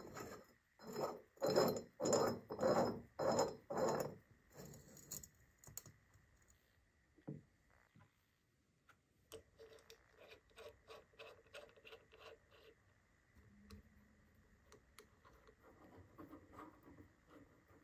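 Metal-on-metal handling during blowtorch reassembly. A brass filler cap is screwed onto the tank in a loud run of about seven jingling, scraping strokes, roughly two a second. Later comes a string of light metallic clicks as small brass parts are handled.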